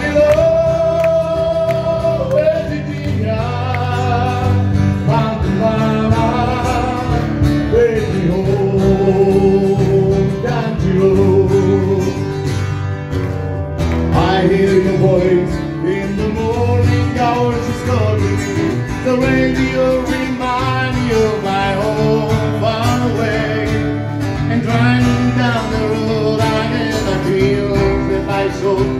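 A man singing into a microphone while strumming an acoustic guitar, amplified through a PA, as a continuous song.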